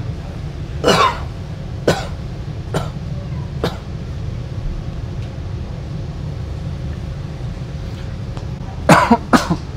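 A man giving staged, strange-sounding coughs: a loud cough about a second in, a few short sharp ones after it, and a quick run of two or three near the end, over the steady low rumble of a moving metro train.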